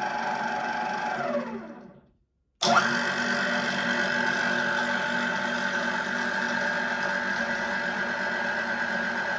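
IMA IG 30-8 geared-head drill press running, its electric motor and gearbox giving a steady whine. A little over a second in it winds down, the whine falling in pitch to silence, then it is heard running again at a steady speed with a different, higher-sounding gear whine.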